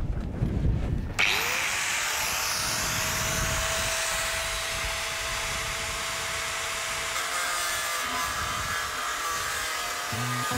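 Angle grinder starting about a second in, its whine rising quickly to a steady pitch, then cutting through steel plate with a steady hiss.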